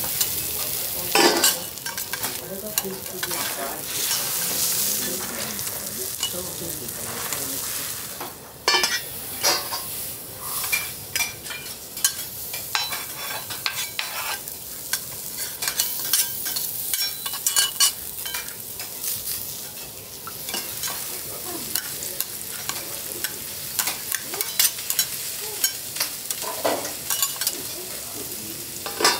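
Onion slices and garlic chips sizzling in oil on a steel teppanyaki griddle, with metal spatulas tapping and scraping on the hot plate.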